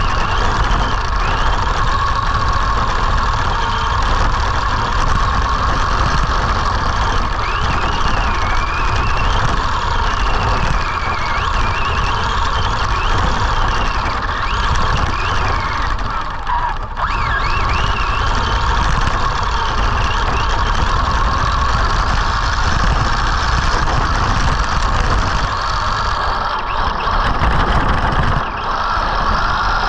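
Arrma Senton RC truck's electric motor whining, the pitch rising and falling as the throttle changes, over a steady low rumble of wind and tyres on snow.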